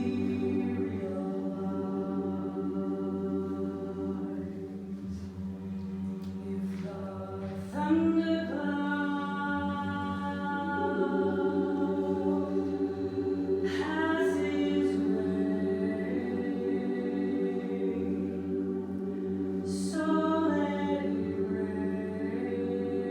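Choir singing sustained chords over a held low note, with new phrases entering sharply about 8, 14 and 20 seconds in.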